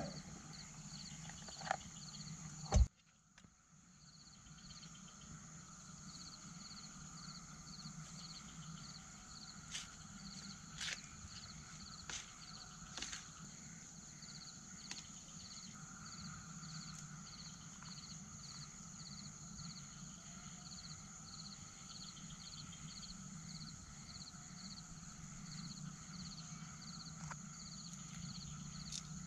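Outdoor ambience of insects chirping in a steady, evenly pulsing rhythm, with a sharp click about three seconds in and a few light clicks of plastic cutlery against a plate.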